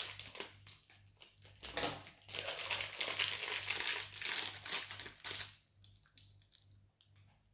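A small plastic blind bag crinkling and rustling as it is cut open with scissors and pulled apart by hand. The crinkling stops about five and a half seconds in, leaving a few faint ticks.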